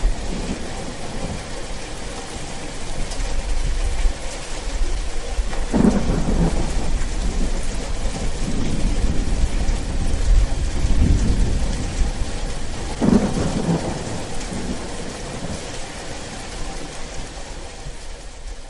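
Thunderstorm: steady heavy rain with rolling thunder, two louder peals about six and thirteen seconds in, slowly dying down near the end.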